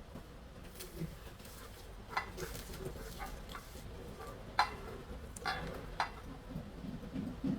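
Kitchen utensils clinking against dishes: a handful of sharp, brief clinks, the loudest about halfway through, with softer scraping and handling between them.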